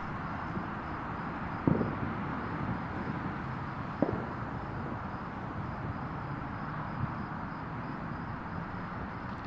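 Steady rushing hum of distant highway traffic, broken by two short, sharp thumps about two seconds apart, the first about a second and a half in.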